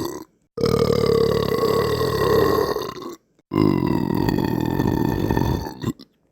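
Two long, low belches, each lasting about two and a half seconds, with abrupt silent cuts before, between and after them.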